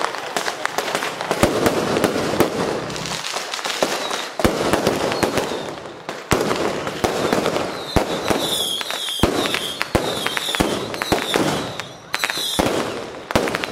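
Firecrackers going off in irregular sharp bangs and crackles over the steady noise of a large street procession crowd. A run of short high-pitched tones sounds several times about two-thirds of the way through.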